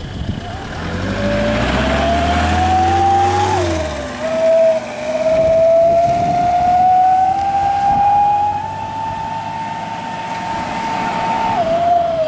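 A road vehicle's engine accelerating with a whining note that climbs in pitch. It drops at a gear change about three and a half seconds in, then climbs slowly again until another drop near the end.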